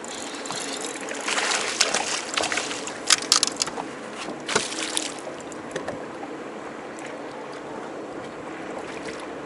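A hooked bass splashing at the water's surface beside a boat as it is brought in and landed by hand, with a cluster of sharp knocks about three seconds in and two more about a second later. A steady low hum runs underneath.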